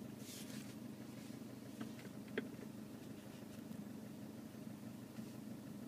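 Low, steady hum inside a vehicle cabin, with a few faint clicks about two seconds in.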